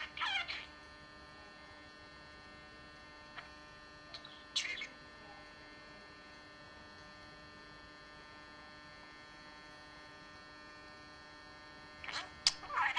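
Budgerigar giving a few short chirps: a falling chirp at the start, a brief burst about four and a half seconds in, and several more near the end, over a steady electrical hum.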